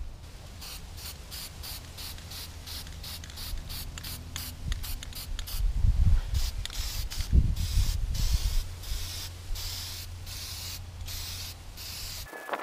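Aerosol spray paint can hissing in short, repeated bursts with brief breaks between them as black paint is sprayed over aluminum coat hooks.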